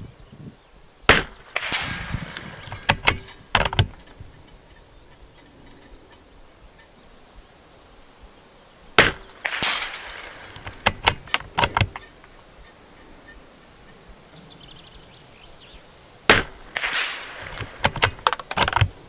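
Three shots from a bolt-action .22 rimfire rifle (Bergara B14-R), about seven seconds apart. Each shot is followed about half a second later by the bullet striking a steel spinner target downrange, then a quick run of smaller clicks.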